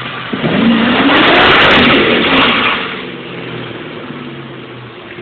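Ford Mustang engine revving up hard during a burnout, with a loud rush of tyre-spin noise for about two seconds at the peak. The revs then drop back and the engine runs on more quietly.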